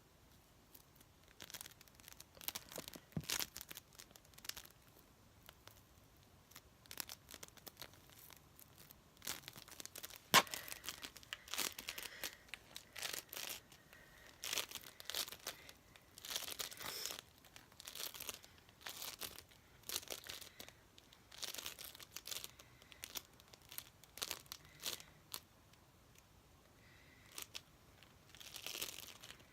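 Close-up irregular crackling and crinkling from hands working crinkly material, in short bursts, with one sharp snap about ten seconds in.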